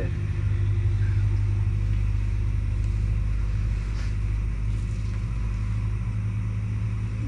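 Steady low engine hum, as of an idling vehicle, with a few faint ticks.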